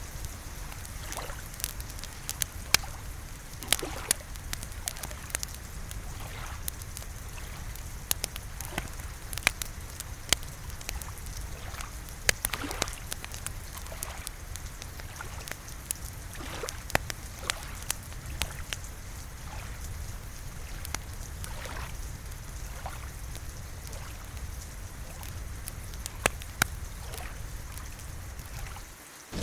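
Wood fire crackling: irregular sharp pops and snaps over a steady low rumble, dipping briefly near the end.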